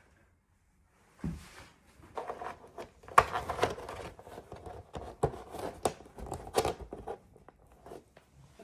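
Vogels TVM 5645 full-motion TV wall-mount arm being pulled out, swung and pushed back, with a thud, then irregular metal knocks, clicks and scraping rattles as its joints move.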